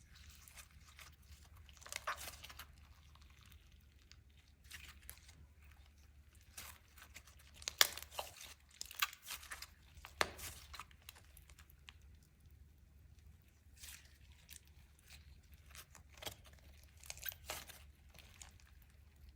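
Slime being kneaded and stretched by hand: irregular bursts of wet crackling and popping, loudest about eight and ten seconds in.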